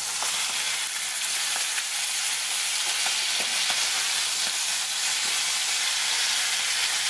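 Beef steaks sizzling steadily in hot butter and oil in a frying pan as they are turned over, with a few faint clicks. The butter and oil are sizzling, which is the sound the cook wants to hear while searing.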